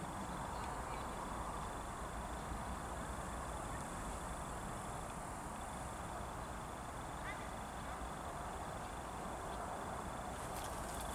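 Quiet outdoor ambience by a river: a steady low hiss with a faint, thin high-pitched tone that drops out now and then, and a few faint short chirps.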